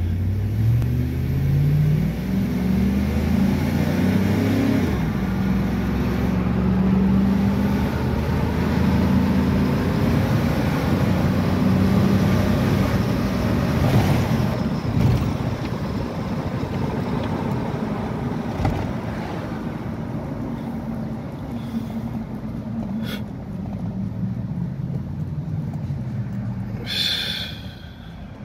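Chevrolet Tahoe 4.8-litre V8 heard from inside the cab, accelerating. Its pitch climbs and drops back twice in the first five seconds as the freshly rebuilt 4L60E automatic transmission upshifts. The truck then cruises with a steady engine and road hum.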